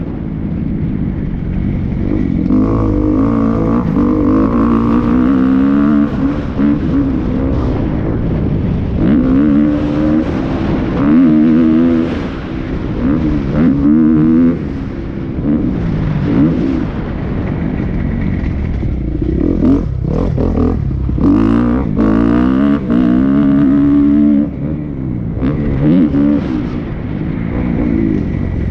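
Dirt bike engine revving hard, its pitch climbing and falling away again and again as the throttle opens and closes, with a few sharp knocks about two-thirds of the way through.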